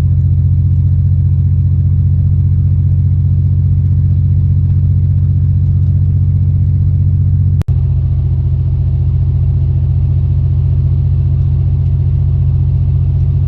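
Old GMC Jimmy driving at highway speed: a steady, loud low drone of engine and road noise. It cuts out briefly once, about eight seconds in.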